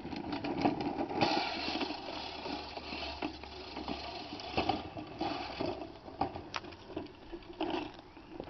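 Manual push reel mower driven along by a bicycle, its spinning cylinder blades clattering and whirring as they cut grass, with scattered knocks and clicks.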